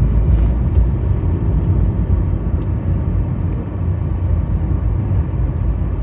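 Car driving on a hill road: steady low rumble of engine and road noise.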